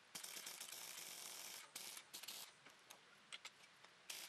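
Near silence: faint hiss in short stretches, with a few light clicks.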